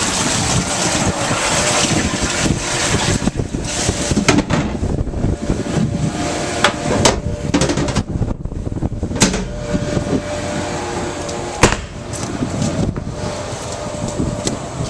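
Steady noise of a boat running on open water, broken by several sharp knocks, the loudest about two-thirds of the way through.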